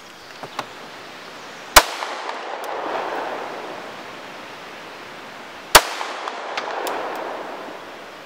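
Two 9mm pistol shots from a Glock 19 Gen 4, about four seconds apart, each followed by an echo that swells and rolls away over a couple of seconds.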